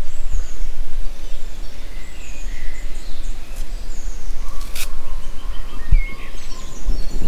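Outdoor ambience: a low, fluttering rumble of wind on the microphone, with small birds chirping now and then. A sharp click comes about two-thirds of the way through, and there are a couple of soft thuds near the end.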